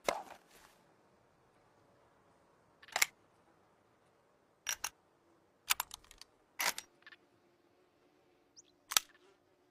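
Sharp clicks and clacks, made as an improvised rifle sound effect, coming at irregular spacing: one at the start, one about three seconds in, a quick pair near five seconds, a short rattling cluster around six to seven seconds, and another near nine seconds.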